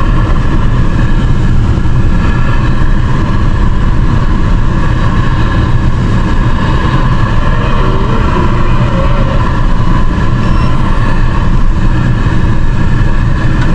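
Truck driving, a steady, unbroken rumble of engine and road noise.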